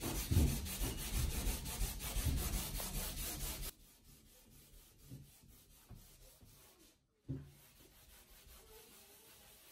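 A scrubber rubbing fast back and forth on a painted wall, scouring off crayon marks with toothpaste and baking-soda water. The rubbing stops abruptly about three and a half seconds in, and only faint, scattered sounds follow.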